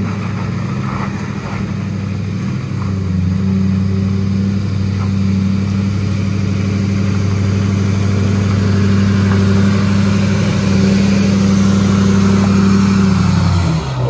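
Chevrolet Silverado 2500HD pickup's engine running at a steady low speed while it pulls a trailer loaded with a skid steer, growing a little louder as the truck passes.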